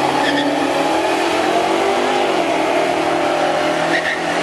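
Dodge Challengers, one new and one classic, running hard down a drag strip at full throttle. The engine pitch rises and then drops about halfway through.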